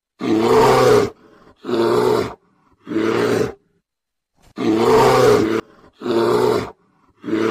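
Bear roaring, dubbed on as a polar bear's call: six loud growling roars about a second each, in two groups of three.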